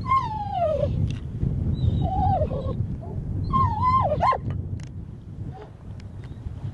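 A retriever whining three times, each cry sliding down in pitch, a sign of the dog's excitement on the line. Wind rumbles on the microphone throughout.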